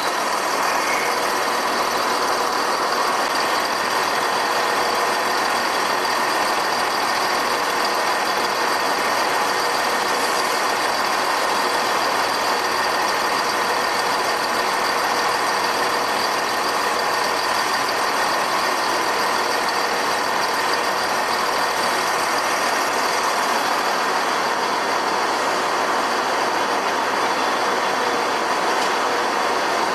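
A Central Trains diesel multiple unit's underfloor engines running steadily while the train stands at the platform, under an enclosed station roof.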